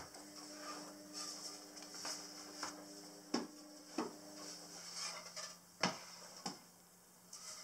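Solid pine boards being set down and handled on cardboard over a counter: a few light wooden knocks, four of them in the second half, over a faint steady hum.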